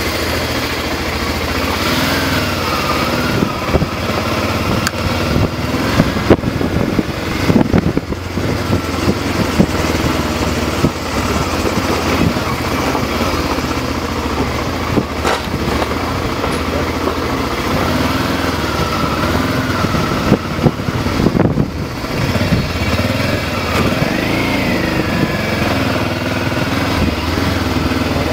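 A car's engine running and its tyres rumbling over a rough gravel road, heard from inside the cabin, with a few sharp knocks and jolts from bumps in the road.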